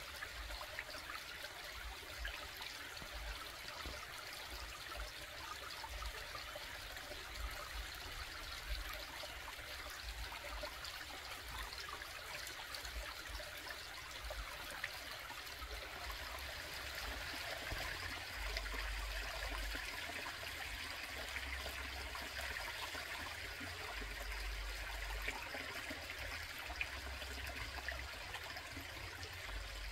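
Small stream of water trickling and splashing steadily over rocks in a little cascade, with occasional low rumbles coming and going underneath.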